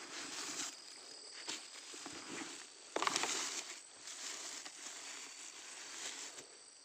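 Dry leaves and forest litter rustling and crunching as someone moves about on them, with one sharp click or knock about three seconds in, the loudest sound, followed by a short burst of rustling. A faint steady insect trill sounds underneath.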